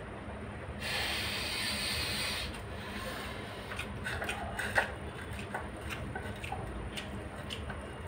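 Eating sounds from a man eating noodles with his fingers: a breathy hiss about a second in lasting over a second, then scattered wet smacks and clicks of chewing, the sharpest just before five seconds in.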